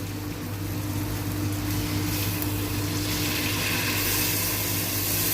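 Chicken frying in butter in a pot as the adobo broth is poured back in: a steady sizzle over a low hum, the hiss growing louder about four seconds in.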